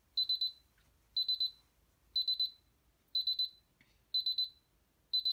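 DSC PC1515 security system's keypad buzzer sounding exit-delay beeps after away arming: a high beep in bursts of about four quick pips, repeating once a second.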